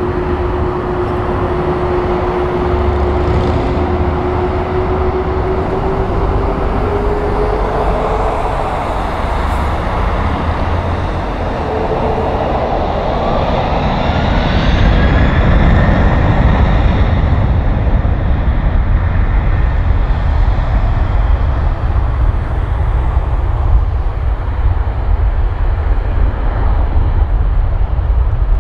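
Airbus A330 jet engines at taxi power: a steady low rumble with a thin whine. A second whine rises in pitch partway through, and the engine noise grows louder from then on.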